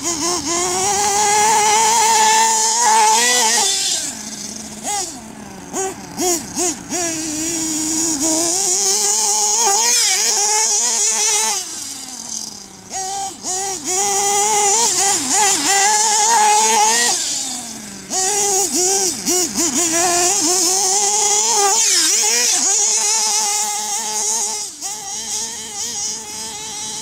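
Two-stroke glow-fuel nitro engine of a Redcat Hurricane XTR 4WD RC buggy running hard. Its pitch rises and falls again and again with the throttle, in loud stretches with short dips between them.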